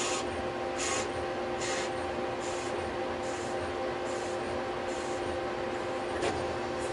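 Citizen Cincom L12 Swiss-type CNC lathe running while turning a brass part: a steady whine on several pitches, with a short hiss recurring at an even pace a little faster than once a second and a sharp click about six seconds in.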